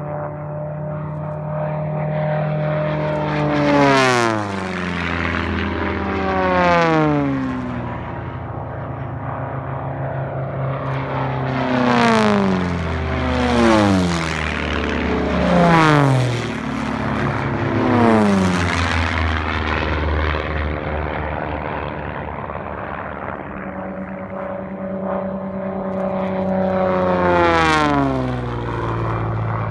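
Sport-class propeller race planes flying low past the pylon one after another, each engine note dropping sharply in pitch as it goes by. There are about seven passes: two in the first several seconds, four in quick succession in the middle, and one more near the end.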